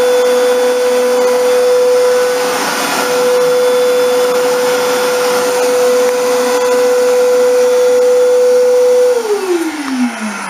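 Vacuum cleaner running with a steady whine over a rushing noise. It is switched off about nine seconds in and winds down with falling pitch.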